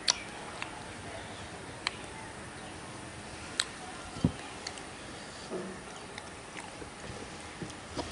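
Eating rice by hand: a few sharp clicks and taps from a steel bowl as dal is poured over the rice, a low thump about four seconds in as the bowl is set down on the plastic table, then soft sounds of fingers mixing the rice, over a steady background hiss.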